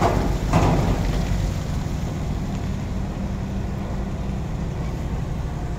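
Heavy diesel engines running steadily with a low hum while a mobile crane lowers a shipping container onto a truck trailer. Two short noisy bursts come in the first second, and the deepest rumble eases off about a second and a half in.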